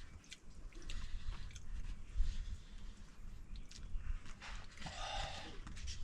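A person eating cup noodles close to the microphone: chewing with many small wet mouth clicks.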